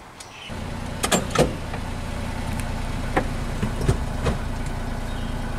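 Honda Acty kei truck's small three-cylinder engine starting about half a second in and settling into a steady idle, with a few sharp clicks over it.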